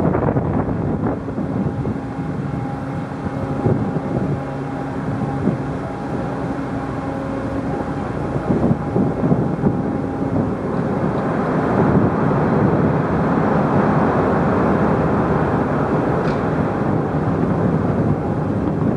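Car ferry under way: the ship's engines and wind buffeting the microphone. Several steady humming tones sound over the noise for the first half, then stop about halfway, and the rushing wind noise grows.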